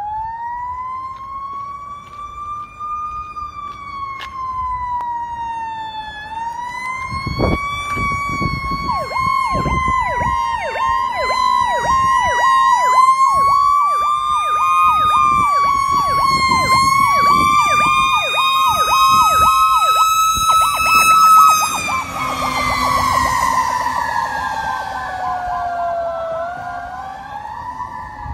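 Fire engine siren: a slow wail rising and falling throughout, with a second, fast-repeating siren tone over it through the middle, growing louder as the engine approaches and loudest about two-thirds of the way in.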